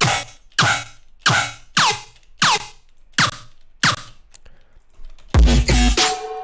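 Electronic bass fill one-shot with a quick downward pitch sweep, played over and over about every 0.6 s, seven times. About five seconds in, a heavier hit with deep sub-bass and a held tone sounds for about a second.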